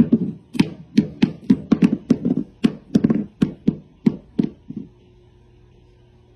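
A round-bottomed black bowl rocking and knocking on a hardwood floor as a cat bats it with its paw: a quick run of light taps, about three or four a second, that stops near the end, leaving a faint hum.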